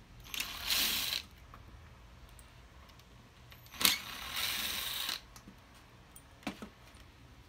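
Screws being backed out of a mold box with a driver: two grinding, whirring runs of about a second each, the second starting with a sharp click, and a couple of light taps near the end.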